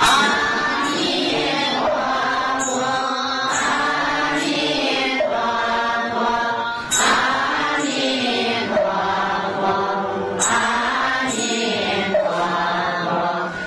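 Buddhist chanting sung to musical accompaniment: a voice chanting in long melodic phrases whose pitch slides up and down.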